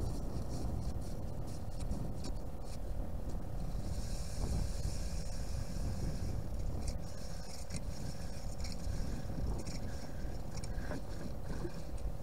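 A steady low rumble with a faint constant hum, overlaid by scattered small clicks and scrapes and a hiss that swells for a few seconds near the middle.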